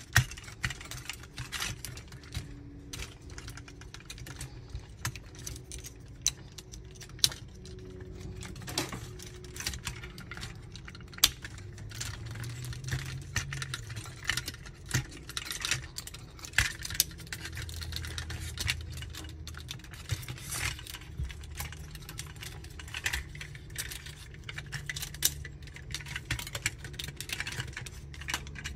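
Plastic joints and panels of a Magic Square MS-02 Light of Peace transforming robot figure clicking and snapping irregularly as it is twisted and folded by hand, with a few louder snaps among many small clicks.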